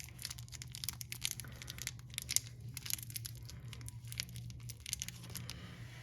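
Faint crinkling and many light clicks from small parts being handled by hand, over a low steady hum.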